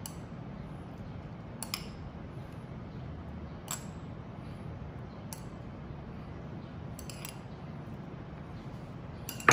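A metal serving utensil clicks lightly against dishes about half a dozen times while chopped carrot is scooped out and sprinkled over a foil tray, with a sharper knock near the end. A steady low hum runs underneath.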